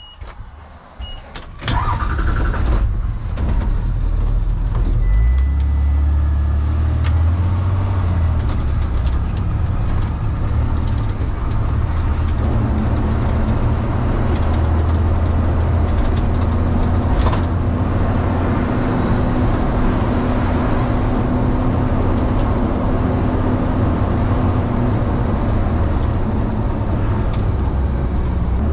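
Delivery vehicle moving off and driving: after a few light clicks, a steady low engine and road noise starts about two seconds in and carries on.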